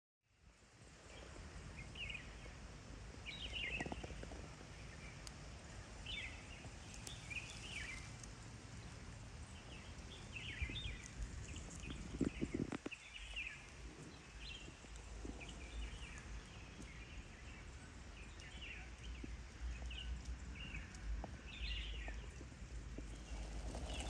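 Forest ambience: small birds chirping on and off over a steady low rumble, with a brief low knock about halfway through.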